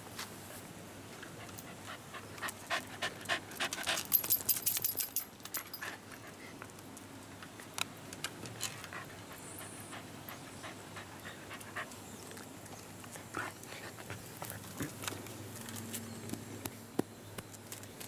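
A Shiba Inu dog panting, with a quick run of sharp clicks and taps about two to six seconds in, loudest near the middle of that run, and a few single clicks after.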